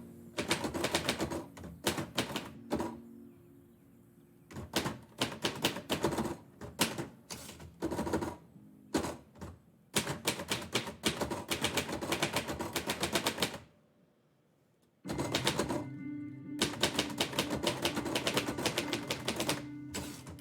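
Typewriter keys struck in quick runs of typing, broken by short pauses and one stop of about a second near two-thirds of the way through. Mellow instrumental music plays underneath.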